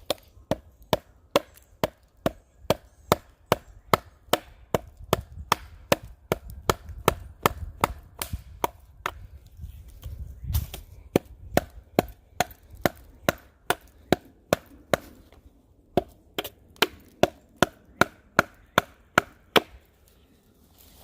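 Rapid, evenly paced chopping blows into wood, about two to three strikes a second, with a short break about fifteen seconds in.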